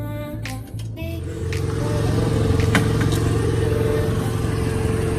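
Background music for about the first second. Then a motor starts a steady run, a constant tone over a low hum, with a few light knocks.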